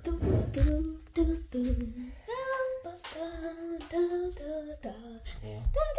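A girl singing a tune to herself, a string of held notes stepping up and down in pitch, with a few low thumps at the start and near the end.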